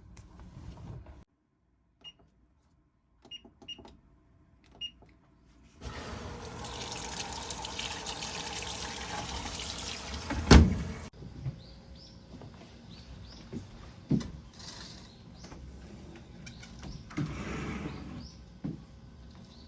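Kitchen cooking sounds: a few short electronic beeps, then a steady rushing hiss of about five seconds that cuts off just after a loud knock, followed by scattered clicks and clatter.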